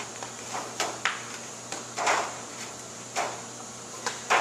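Aluminum foil pan of dirt being handled and propped up on a clear plastic container. The foil crinkles and the pan knocks against the plastic in a handful of short clatters, the loudest near the end.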